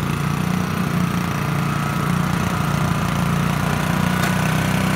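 Small walk-behind snowblower's engine running steadily under load as it clears snow, with a faint steady whine over the engine drone. A short click sounds once about four seconds in.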